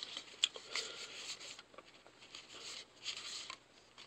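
Trading cards being flipped through by hand: soft sliding rustles of card stock in short patches, with a few light clicks.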